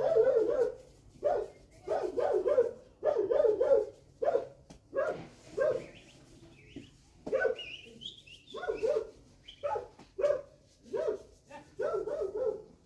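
A dog barking repeatedly, in short runs of two or three barks, with a brief pause about six seconds in.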